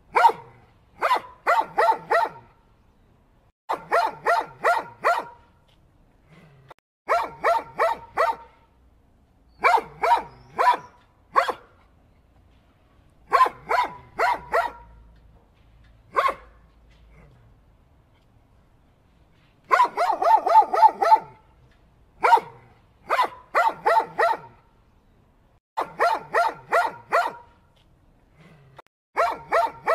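A dog barking in quick runs of three to five barks, each run a second or two apart, with a few single barks between and one longer pause after the middle.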